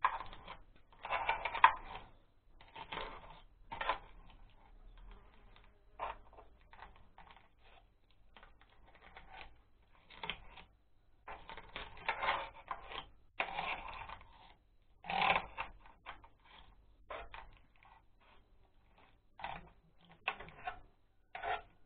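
Irregular metallic clinks, taps and scrapes of a hand tool and parts being worked in the open, grease-packed gearbox housing of an Oka walk-behind tractor, coming in clusters with short pauses and loudest about a second in and again around the middle.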